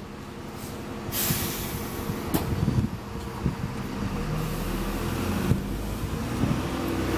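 Enviro400 double-decker bus on a Trident chassis pulling in to a stop: its diesel engine runs and grows steadily louder as it approaches. A short hiss of air comes about a second in.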